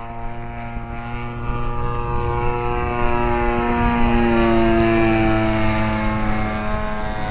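Giant-scale RC Piper Cub's converted 47cc two-stroke chainsaw engine and propeller running steadily in flight. It grows louder as the plane passes overhead, and its pitch drops slightly as it moves away in the second half.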